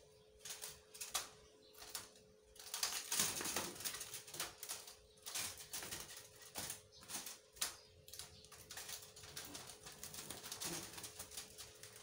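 Javan myna scrambling and flapping inside a wire birdcage as a hand reaches in to catch it: wings beating against the bars and the cage wires rattling in irregular bursts of clicks and rushes.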